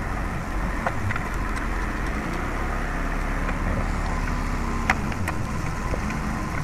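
A steady low mechanical rumble, engine-like, with a few sharp clicks from hands handling a changeover switch and its wiring; the loudest click comes about five seconds in.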